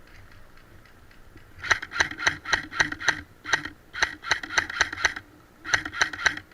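Airsoft gun firing about twenty sharp shots in quick succession, in three clusters a few tenths of a second apart, with fainter shots audible before them.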